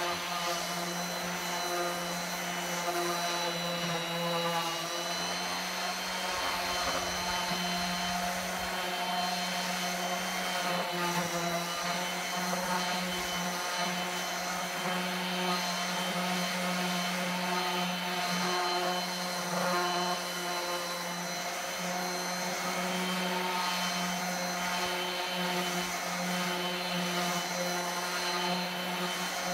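DeWalt random orbital sander running on a wooden board as it is worked slowly across the surface. It gives a steady motor hum with several higher, constant tones over it.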